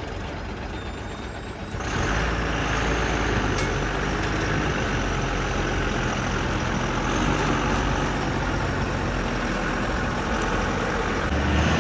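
Heavy truck's diesel engine running steadily, becoming abruptly louder about two seconds in.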